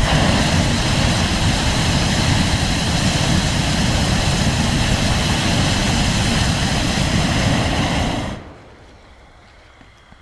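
Hot air balloon's propane burner firing in one long, loud blast to heat the envelope during inflation. It cuts off suddenly about eight seconds in.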